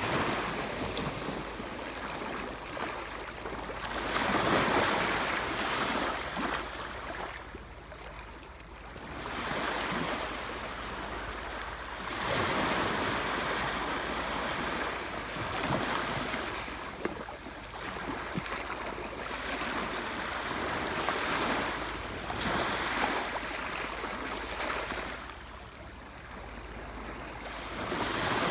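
Sea waves washing in, a rushing noise that swells and fades again every few seconds.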